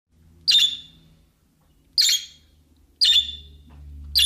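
Budgerigar giving four short, loud, harsh chirps, each a second or so apart.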